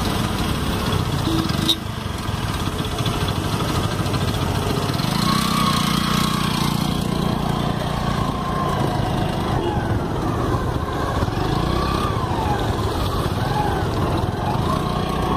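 A motor vehicle's engine running steadily amid road noise, with a single sharp click about two seconds in.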